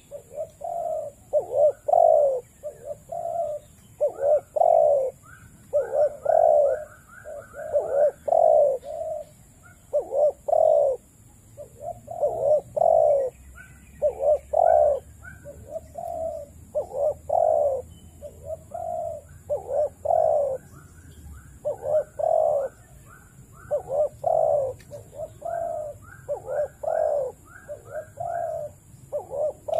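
Spotted doves cooing over and over: phrases of several low, rounded coo notes, a few per second, each set off by short higher notes, with brief pauses between phrases.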